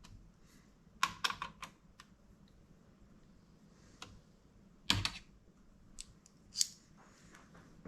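Sharp plastic clicks and taps from a laptop being handled during disassembly: a quick run of about four clicks about a second in, then a few single, louder clicks later.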